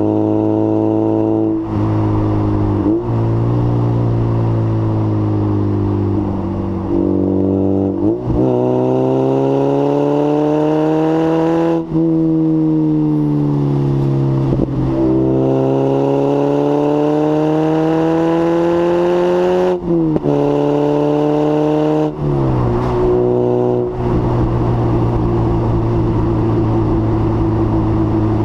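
Lotus Elise S1 111S's four-cylinder Rover K-series 1.8 VVC engine through a Bell & Colvill exhaust with a decat pipe, pulling up through the revs and breaking off at gear changes several times, then running at a steady pitch for the last few seconds.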